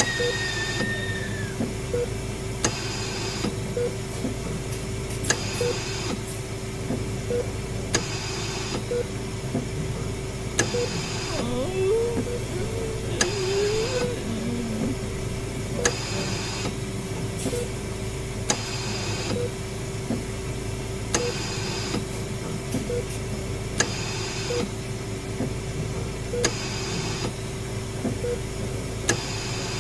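Eerie hospital horror ambience built from sound effects: a steady machine hum and drone, short ticks about once a second, and a hissing puff every couple of seconds, like a mechanical pump. A brief wavering, moan-like pitch rises and falls about halfway through.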